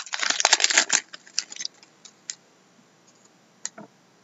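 Foil trading-card pack wrapper being torn open and crinkled, a dense crackling for about the first second. It gives way to a few soft clicks and rustles as the cards are slid out.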